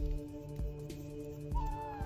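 Background music with a steady beat and held tones; a new sustained note comes in about one and a half seconds in.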